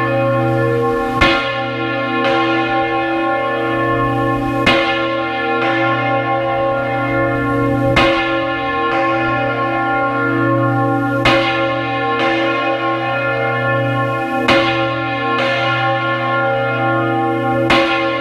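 A large cathedral bell rung full circle in the Spanish volteo style, swinging over on its counterweighted yoke. The clapper strikes six times, a little over three seconds apart, and each stroke leaves a long ring that carries into the next.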